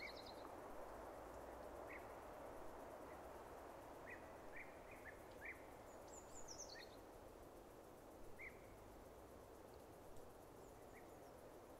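Faint outdoor nature ambience: a steady soft rushing hiss with scattered short bird chirps, and a quick falling run of higher bird notes about six seconds in.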